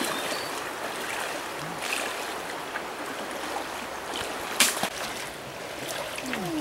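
Shallow stream running over stones, with the splashing of feet wading through the water. A single sharp splash or knock stands out about four and a half seconds in.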